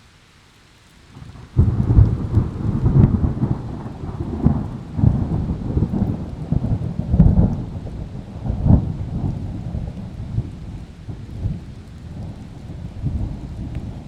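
Thunder in a heavy rainstorm: after faint rain hiss, a sudden loud crack about a second and a half in breaks into a long, rolling rumble with repeated surges that gradually fades, over hard rain.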